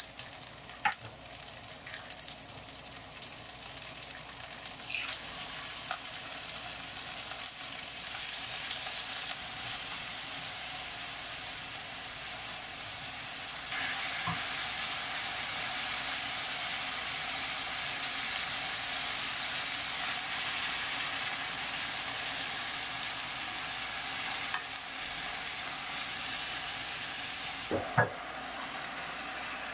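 Garlic cloves and chicken thighs sizzling in hot oil in a frying pan, turned with tongs. The sizzle grows louder about halfway through, and a sharp knock comes near the end, after which the sizzle is quieter.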